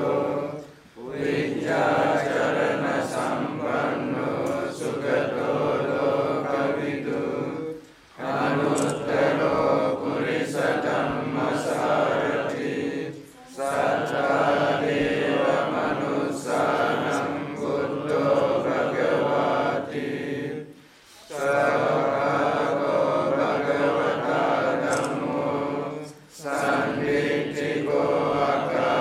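Buddhist monks chanting Pali together in a steady, even recitation. The chant breaks off for a short breath pause about every five to seven seconds, then resumes.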